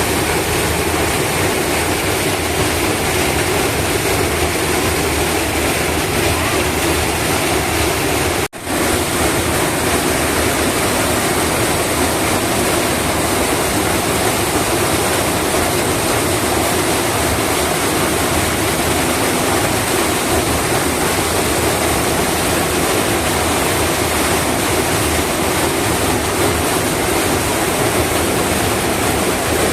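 Loud, steady rush of flowing river water or a waterfall, cut off for an instant about eight seconds in.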